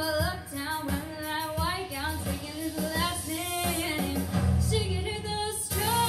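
A woman singing a ballad into a handheld microphone over instrumental accompaniment, her voice gliding up and down through long held notes.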